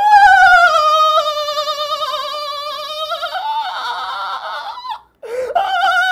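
A man's laugh that comes out as a dolphin-like squeal: long, high whistling tones with a fast wobble, falling slowly in pitch. It turns rougher about three seconds in, breaks off briefly near five seconds, then starts again.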